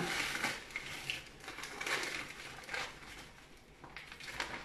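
A bag of frozen raspberries crinkling and rustling as the berries are shaken out of it into a plastic chopper bowl, with the soft knocks of the frozen berries landing, in irregular bursts.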